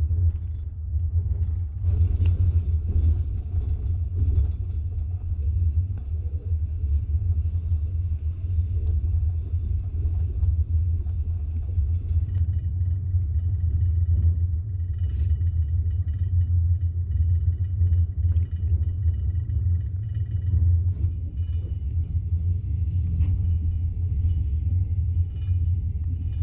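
Steady low rumble of a passenger train in motion.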